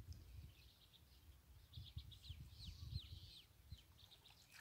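Faint bird calls: scattered short high chirps, with a run of four or five quick falling whistled notes about halfway through, over a low rumble.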